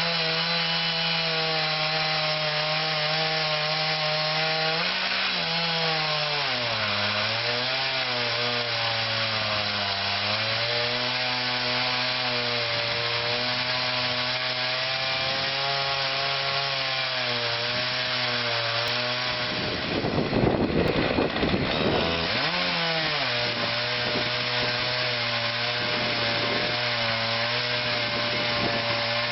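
Chainsaw mounted in a Granberg Alaskan chainsaw mill, running at full throttle as it rips a log lengthwise into boards. The engine note dips as the chain loads into the cut, then holds steady. About twenty seconds in it turns rougher and louder for a couple of seconds before settling again.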